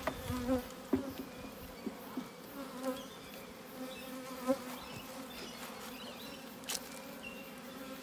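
Honeybees buzzing around an open hive, a steady hum with single bees swooping past close by. A few sharp clicks come through, the loudest about a second in and near the end.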